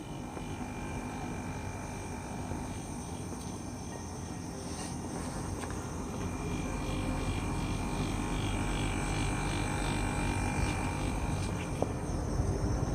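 Steady machine running noise, a low hum with a faint steady whine over it, slowly getting louder.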